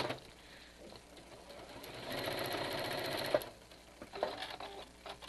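Sewing machine stitching a 1 cm seam through the layers of a cloth mask: a run ends right at the start, then after a pause it runs again for about a second and a half and stops, followed by a few light clicks.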